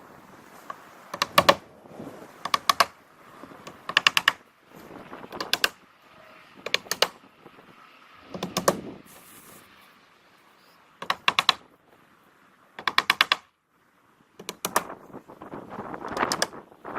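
Plastic-cap roofing nails being driven through underlayment into the wooden roof deck: about ten short bursts of rapid knocks, roughly one every one and a half seconds, with a brief pause partway through.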